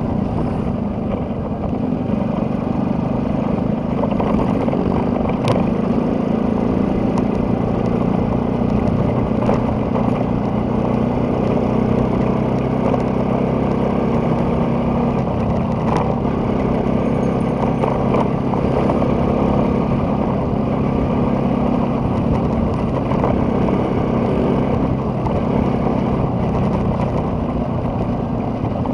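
A vehicle's engine running steadily on the move, a continuous low hum with road noise. Two short sharp clicks come, one about five seconds in and one about sixteen seconds in.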